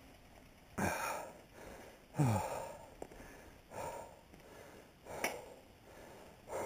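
A mountain biker breathing hard while riding, with a heavy exhale about every second and a half, one of them voiced and falling in pitch. There are a couple of sharp clicks, one a little past the middle and a louder one later on.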